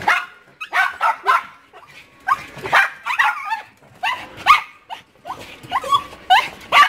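Pomeranian spitz dogs yipping and whining in excited greeting: a fast run of short, high calls, about two a second, some rising in pitch.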